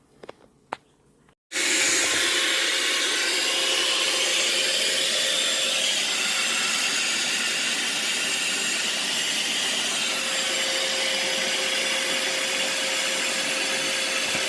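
Bee vacuum running steadily with a constant hum, sucking up honey bees during a hive removal. It comes in abruptly about a second and a half in, after two faint clicks.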